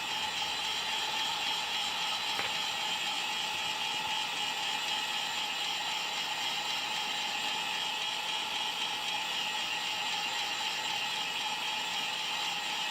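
Heat gun blowing hot air steadily, a constant fan whir and rush of air, used to soften the screen adhesive. A faint click about two and a half seconds in.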